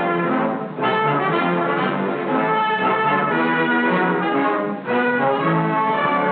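Orchestral film score led by brass playing sustained chords, with short breaks between phrases.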